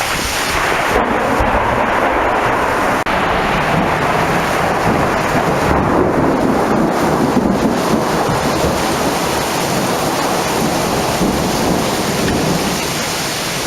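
Steady heavy rain with a long roll of thunder that swells about half a second in and fades near the end, some twelve seconds later.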